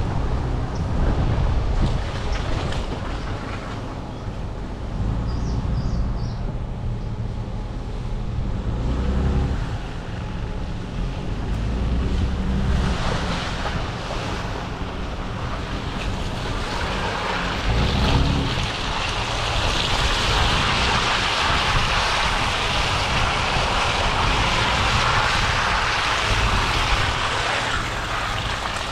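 Toyota Tundra pickup driving slowly along a dirt trail: a steady low rumble with rushing wind noise on the microphone that grows louder in the second half. A single low thump about eighteen seconds in.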